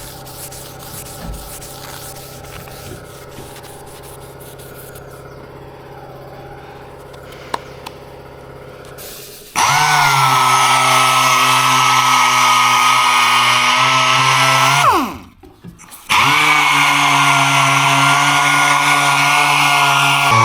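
A low steady hum with a few light knocks, then a power tool switches on suddenly with a loud steady whine. About five seconds later it spins down with a falling pitch, and a second after that it starts again and runs on.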